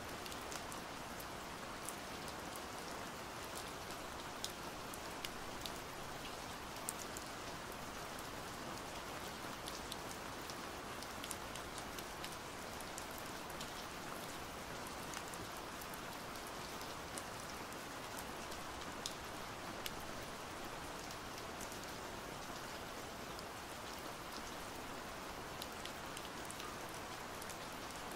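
Steady pouring rain, with scattered sharp ticks of individual drops landing close by.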